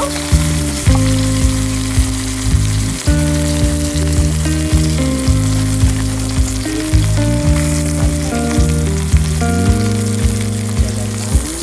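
Food frying and sizzling in a hot pan, under background music with a steady beat and changing chords.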